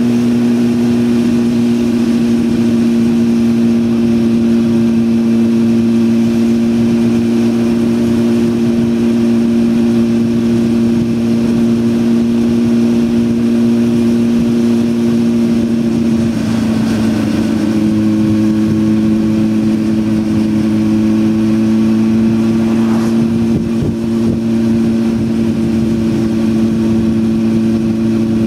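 Honda Hornet 600's inline-four engine running at a steady, high pitch as the motorcycle cruises, the note barely changing. About two-thirds of the way through the pitch wavers briefly and settles at a slightly different level.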